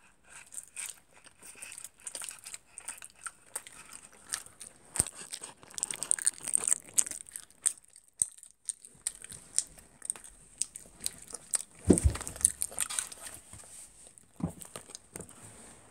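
Irregular crinkling and rustling of a paper food sleeve being handled close to the microphone, mixed with chewing. A dull thump about three quarters of the way through is the loudest sound.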